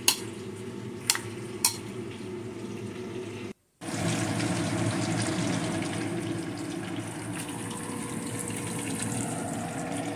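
A few light clinks of a spoon against a ceramic salad bowl, then, after a brief cut-out, a steady rush of running water in a kitchen.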